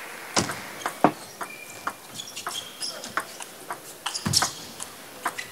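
Table tennis rally: the celluloid-type ball clicking sharply off rackets and the table, about one hit every half second, with the loudest hits about half a second in, a second in and just past four seconds. Short squeaks of players' shoes on the court floor come between the hits.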